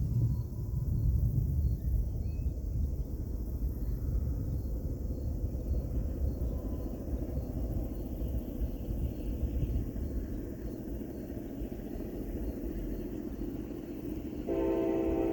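CSX freight train rumbling by: the low, steady rumble of the locomotives and loaded cars. Near the end the locomotive's multi-chime horn starts suddenly and holds as one steady chord.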